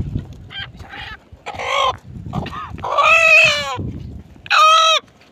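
A rooster crowing, with shorter clucking calls before it; the loudest, longest calls come about three seconds in and again near the end.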